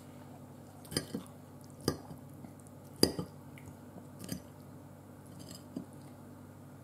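Eating sounds: a handful of short clicks and smacks spread a second or so apart, with a metal fork tapping on the plate in the later part.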